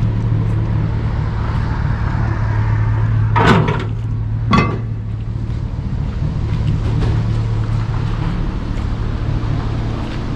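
Engine running steadily with a low hum. Two sharp clanks, about a second apart, near the middle, typical of scrap metal being handled.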